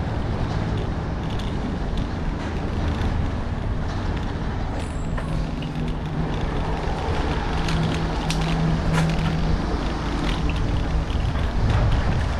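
Bicycle riding over flagstone and brick paving: a steady rush of wind on the microphone and tyre rolling noise, with scattered small clicks and rattles as the wheels cross the joints in the pavement.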